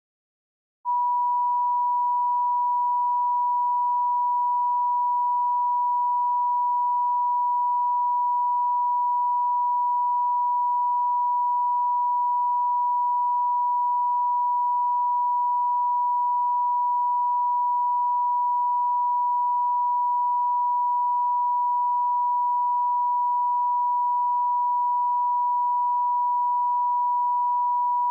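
Line-up tone: a pure, steady test tone at the standard one-kilohertz pitch, switching on about a second in and held unbroken at one level.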